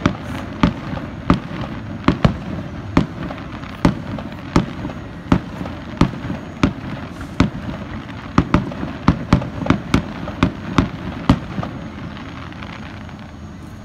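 Aerial firework shells bursting in a rapid series of sharp bangs, about two a second, stopping about eleven seconds in.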